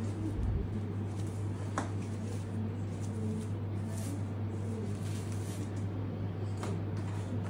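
Cloth helmet bag rustling and a boxed helmet being handled as it is lifted out and the bag pulled off, with a couple of light clicks. A steady low hum sits underneath.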